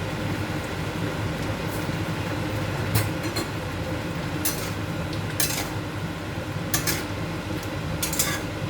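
A metal spoon or ladle scraping and clinking against a cooking pot several times, as the curry is stirred after salt goes in, over a steady low hum.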